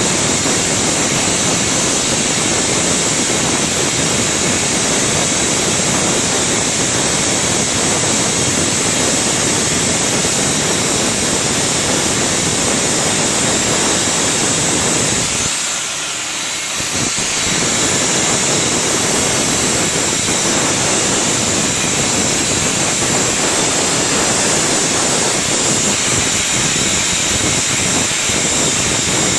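Gas burner flame of a glass-blowing lathe running steadily on the glass turning in the chucks, a continuous rushing noise. About halfway through, its deeper part drops away for a second or two, then returns.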